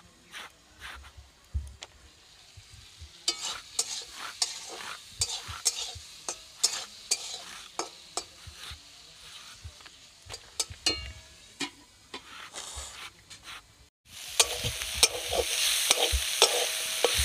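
Bottle gourd being sliced on a boti, the curved floor-mounted blade, in a series of crisp separate cuts. Near the end it gives way to a loud steady sizzle: turmeric-coated prawns frying in a wok (karai), with the metal spatula scraping and stirring.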